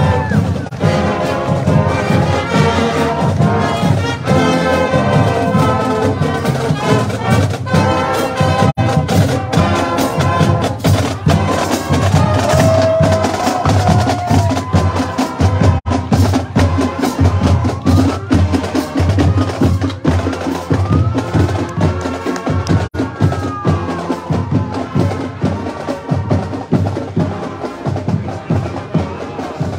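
Marching band playing on the march: brass with trumpets, trombones and sousaphones, then clarinets and saxophone, over a steady marching drum beat.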